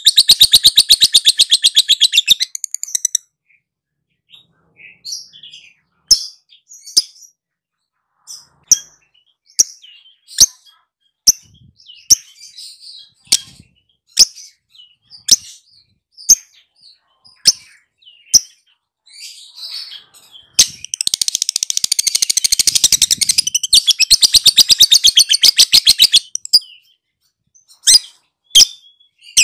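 Lovebird's ngekek: long runs of very rapid, high-pitched chattering notes. One run ends about three seconds in, and another lasts about six seconds near the end. Between them come single sharp chirps about once a second.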